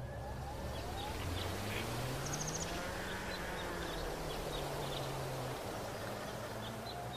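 Motorcycle engine running at low revs as the bike rolls along, its pitch rising slightly after about a second and dropping back near the end, with a steady rush of wind and road noise. Faint bird chirps are scattered through it.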